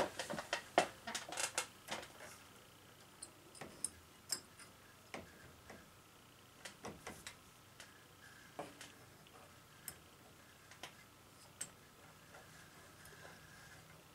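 Small clicks and taps from hands working on a light fixture's wiring and hardware: a quick run of clicks in the first two seconds, then faint isolated ticks every second or so.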